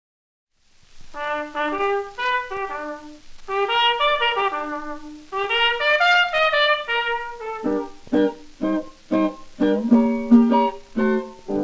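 Band introduction on a 1928 novelty-song record: a brass-led melody starts about a second in, then about seven and a half seconds in gives way to short, separate chords.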